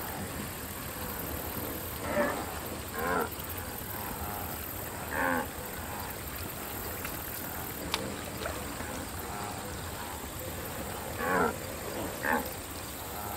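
Cartoon wildebeest grunting in short, low murmuring calls, five in all, in two pairs and one alone, over a steady hiss of background ambience.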